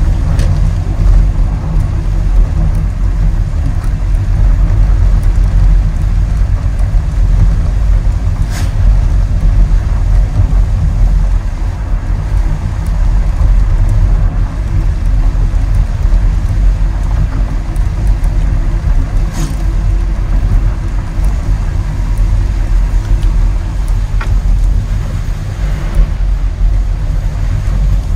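Car driving along a road: a steady low rumble of engine and tyre noise, with a few brief sharp ticks.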